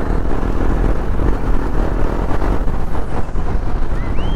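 KTM Duke 250's single-cylinder engine and wind rumble, heard from the moving motorcycle, with a brief rising-then-falling tone near the end.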